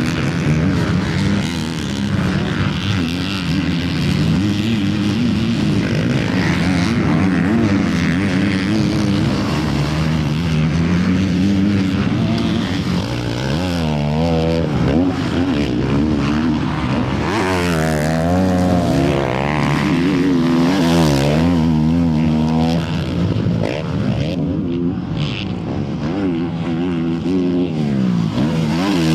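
Motocross bike engines revving up and down as the bikes ride the track, the pitch climbing and dropping again and again. The sweeps come fastest through the middle stretch.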